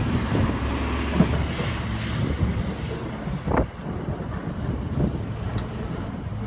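Snowplow truck running with a steady low rumble, with a couple of short sharp knocks.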